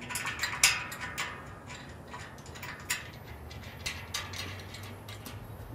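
Light metallic clicks and taps as short bolts with washers are fitted and turned by hand into a headache rack's mounting bracket: a quick cluster in the first second or so, then a few scattered clicks.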